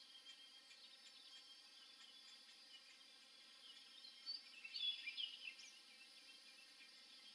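Faint outdoor ambience: a steady high chorus with scattered distant bird calls. About four seconds in comes a short run of louder, quick chirping bird calls lasting about a second and a half.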